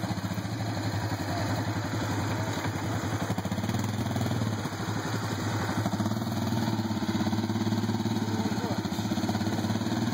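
ATV engines running steadily at a low, even pulse.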